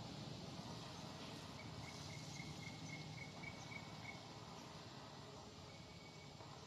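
Faint outdoor background hiss with a high chirping trill: short notes at one pitch, about four a second, lasting about two and a half seconds from about a second and a half in, then a brief fainter note near the end.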